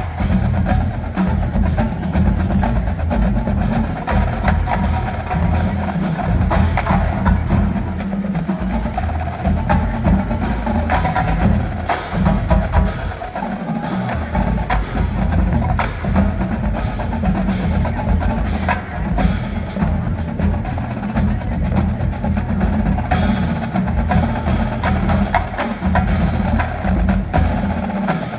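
Marching band playing percussion-heavy music: drums and struck percussion over sustained low brass.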